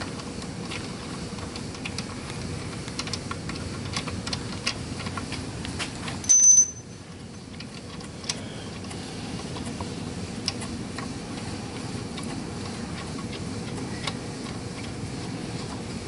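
Light metallic clicks and ticks of tools and a bolt being fitted by hand at the timing-chain end of an engine, threaded in finger-tight, over a steady shop hum. One short, loud metallic clank about six seconds in.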